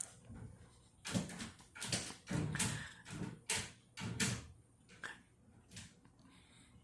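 A dog playing with a noise-making toy ball: a quick run of knocks and scuffles lasting about three and a half seconds, then two softer ones.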